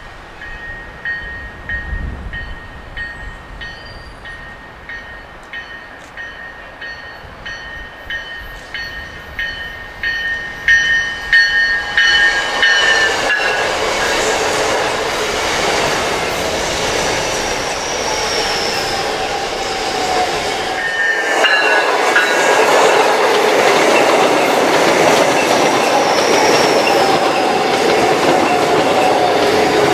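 South Shore Line electric multiple-unit commuter train approaching on a curve. A quiet, high, steady squeal, likely from the wheels on the curve, comes first. About twelve seconds in it gives way to the loud rumble and clatter of the bilevel cars passing close by, with short falling whines.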